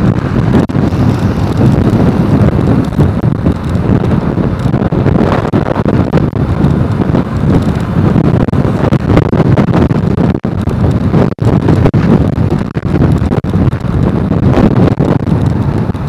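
Loud wind buffeting the microphone of a camera on a moving motorcycle: a dense, low rumble of wind and road noise with no pauses.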